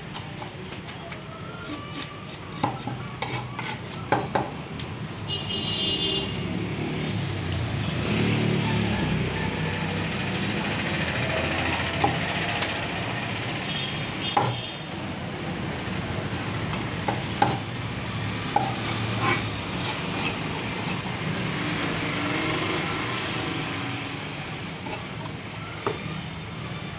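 A large knife scrapes the scales off a tilapia in rapid raspy strokes, then chops and slices the fish on a wooden block, with sharp knocks of the blade on the wood now and then. A steady low rumble runs underneath.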